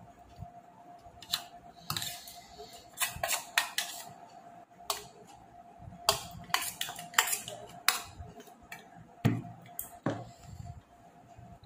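Irregular clinks, taps and scrapes of utensils and a plate during a meal, about a dozen sharp knocks spread unevenly.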